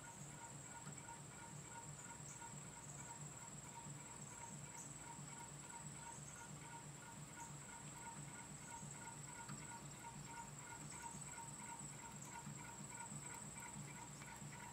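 Paillard 'Mercure' hot-air (Stirling-cycle) fan running: a faint, even, rhythmic beat of the small engine and spinning blade, with a steady thin high tone alongside.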